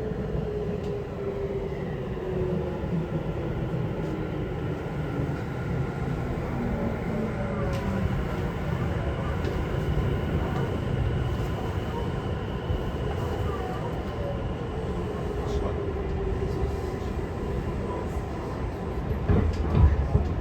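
Running noise heard from inside a Tokyu 5050 series electric train: wheel-and-rail rumble under the traction motors' whine. One whine tone slides steadily down in pitch over the first several seconds. A loud low thump comes near the end.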